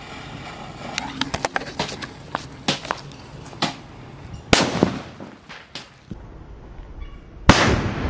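Thunder sutli bomb (a twine-wrapped firecracker) going off in a cement hole with one sudden loud blast about seven and a half seconds in. Before it comes a run of short sharp clicks and cracks while its fuse is lit and burns, with one louder crack about four and a half seconds in.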